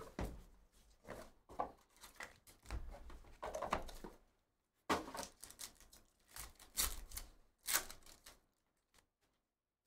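Foil trading-card pack crinkling and tearing as it is ripped open, mixed with the cardboard hobby box being handled. Irregular crackles and rustles that stop about a second before the end.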